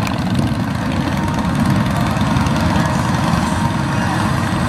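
Vehicle engines running at low speed, a steady low rumble from a motorcycle pulling away and an engine-powered cart.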